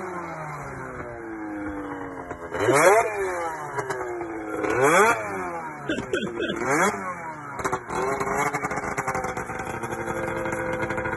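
Ski-Doo Summit snowmobile engine being revved in short blips, the pitch rising and falling: two strong revs about three and five seconds in, a few smaller ones after, then it settles into steady running.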